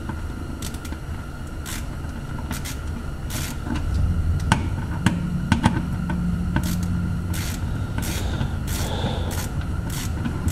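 Ratchet with a 10 mm shallow socket clicking in short strokes as it unscrews a bolt from a plastic underbody cover, with a few sharper metallic clicks in the middle. A low rumble comes in about four seconds in.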